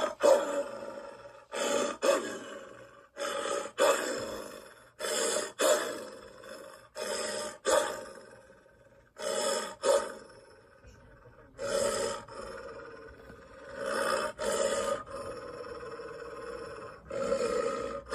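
Dogs barking and growling in a string of rough calls, one every second or two, each starting abruptly and trailing off, some in quick pairs.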